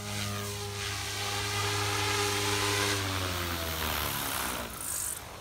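Electric RC helicopter (a Goblin converted to 420 size) in flight, its main rotor and electric motor making a steady whine. About three seconds in the pitch glides down and the sound fades as it comes in to land.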